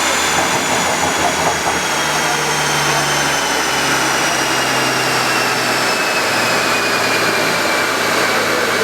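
Loud, steady engine running with a high whine that falls slowly in pitch, its low note stepping down twice.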